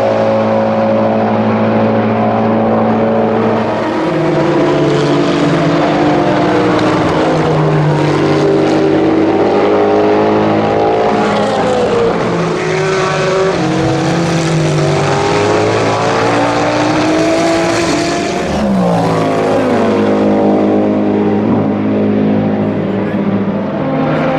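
Race-car engines at full racing speed, led by the Cadillac V-Series.R LMDh hypercar's 5.5-litre V8. The engine note holds steady at first, then climbs in repeated steps through upshifts and drops again on downshifts as the cars go by.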